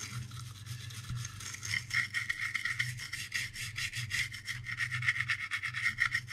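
Toothbrush bristles scrubbing the circuit board of a diesel fuel pump control unit wet with rubbing alcohol: rapid back-and-forth strokes, getting louder about a second and a half in.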